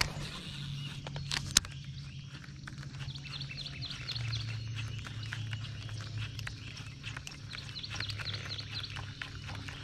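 Two runs of short, high, repeated chirps from a wild animal, one a few seconds in and one near the end, over a steady low hum, with a couple of sharp clicks about a second and a half in.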